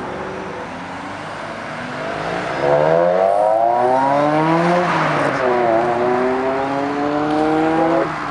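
Sports car accelerating hard away. The engine note climbs steeply, drops as it shifts up about five seconds in, then climbs again, and is cut off suddenly near the end.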